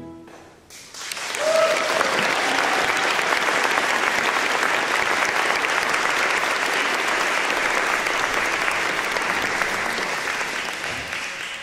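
The final chord dies away and the audience breaks into applause about a second in, a steady clapping that eases slightly near the end.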